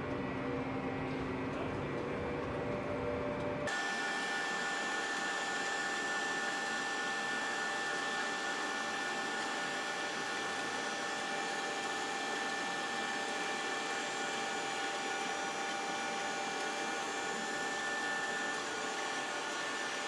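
Toshiba TD 60/85 CNC vertical turning and boring mill running steadily: a continuous mechanical noise with steady whining tones. The sound changes abruptly about four seconds in, becoming thinner in the bass and brighter.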